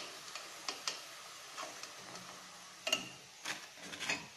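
Light clicks and taps of a stainless steel slotted spoon as fried soya chunks are lifted from the oil and set down on tissue paper, several sharp clicks spread unevenly.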